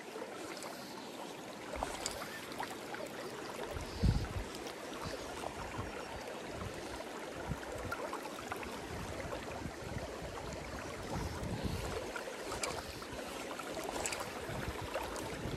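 River current rushing steadily over rocks, with a few low thumps, the strongest about four seconds in.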